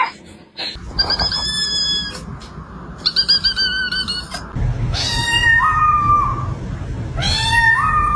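A cat meowing four times in high-pitched calls, a couple of seconds apart, the last two rising in pitch at the end, over a steady low rumble.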